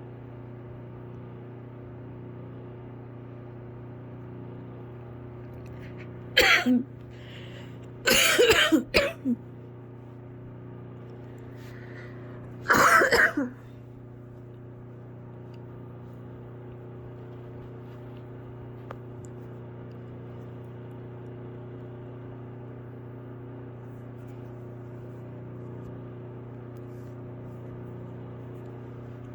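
A sick, somewhat congested person coughing in three short bouts: a single cough about six seconds in, a quick cluster of coughs about eight seconds in, and another cough about thirteen seconds in, over a steady low hum.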